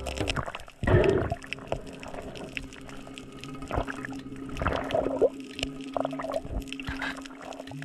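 Muffled water sounds picked up by a camera underwater while swimming over a reef, with louder sloshing or bubbling bursts about a second in and again around five seconds in.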